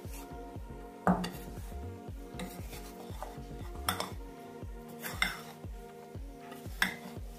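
A metal spoon stirring flour-coated chicken pieces in a glass bowl, knocking and clinking against the glass about five times, roughly every second and a half, over background music.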